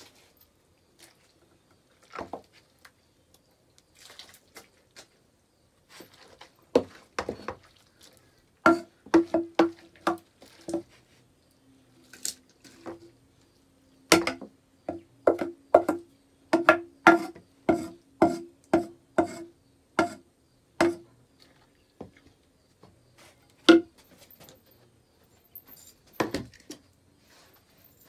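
Metal ladle knocking against the rims of aluminium cooking pots while cooked goat feed is scooped, each knock ringing briefly. The knocks come in runs of about two a second, with a few single knocks between.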